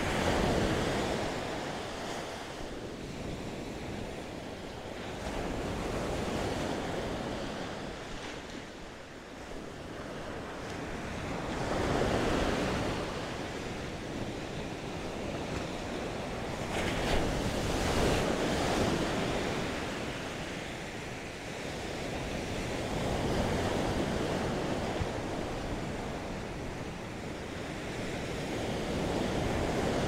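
Ocean surf breaking on a sandy beach, each wave swelling and washing in about every five to six seconds.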